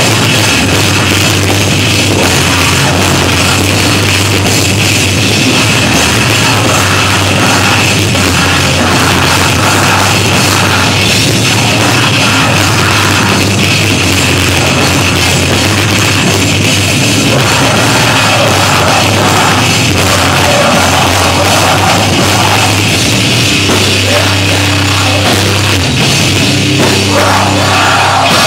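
Rock band playing live at a loud, steady level: electric guitars and a drum kit.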